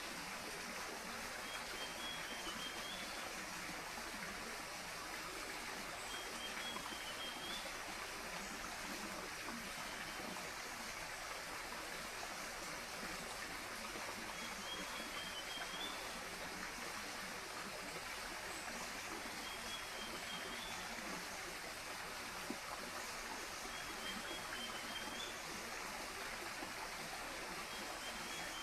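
Steady rushing of a jungle stream, with a bird's short, warbling high call repeating every few seconds over it.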